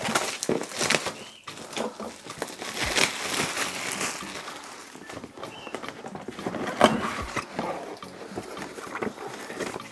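Packaging of a 360 mm all-in-one liquid CPU cooler being opened and handled: rustling with irregular knocks and taps.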